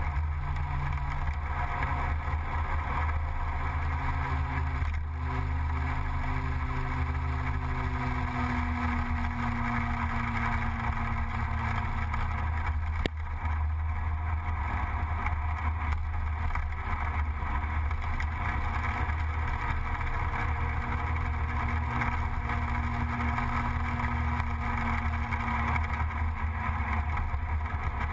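Gilera Runner 180 scooter's two-stroke engine running steadily under way, mixed with wind noise. Its pitch drifts gently with speed, and a single sharp knock comes about halfway through.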